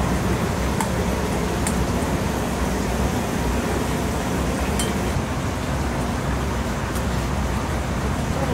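Steady rushing background noise of a commercial kitchen, with a few light clinks of metal tongs against a stainless steel sauce bowl.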